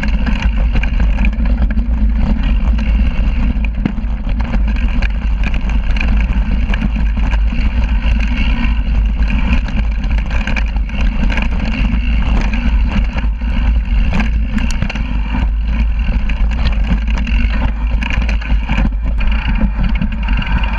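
Yeti full-suspension mountain bike rolling fast over a rocky dirt trail: the knobby rear tyre crunching over rock and gravel, the bike rattling and clattering over the bumps, under a constant wind rumble on the bike-mounted camera.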